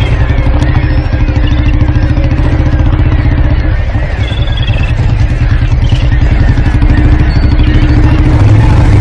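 Motorcycle and scooter engines running close by as the bikes ride up, a fast, even engine beat throughout.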